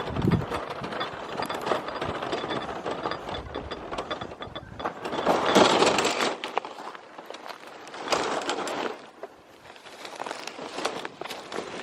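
Crinkling and rustling of plastic and paper litter being handled and bagged, with two louder bursts of crackling past the middle. Wind rumbles on the microphone in the first few seconds.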